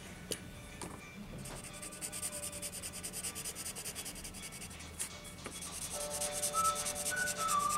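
A marker tip scratching back and forth on paper in quick colouring strokes. It starts about a second and a half in and gets louder toward the end. Faint background music comes in near the end.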